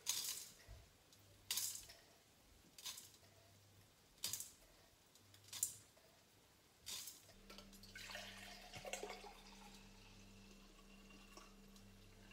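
Pinches of salt sprinkled into a frying pan: six short crackly patters of grains landing, about one every second and a half. Then a softer splash and gurgle of red wine being poured into a glass, over a steady low hum.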